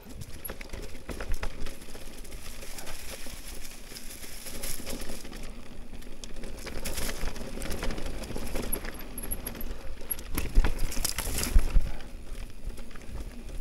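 Riding noise from a Canyon e-mountain bike on a dirt trail covered in dry leaves: tyres crunching over leaves and twigs and the bike clattering over bumps, over a low rumble. The hardest knocks come near the end.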